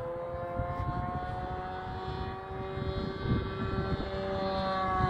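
Radio-controlled model airplane flying overhead, its motor and propeller giving a steady droning note that sags slowly in pitch and rises a little near the end.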